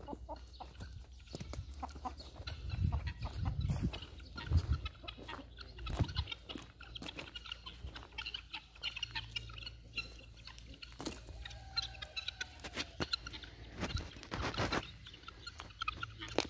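A flock of helmeted guineafowl calling, with many short, harsh clucking notes repeated over and over.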